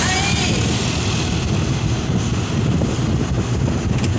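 Steady rush of wind and road noise from a moving vehicle, heard from inside while filming out of the side window, with wind buffeting the microphone.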